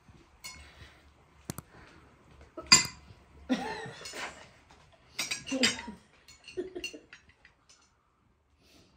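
Kitchen utensils and dishes clinking and knocking, with a sharp knock about three seconds in and short snatches of voice between.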